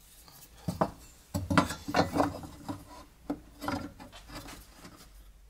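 Wooden pieces and small metal marking tools handled on a workbench while marking out: an irregular run of light knocks and clinks with some scraping and rubbing, busiest in the first half.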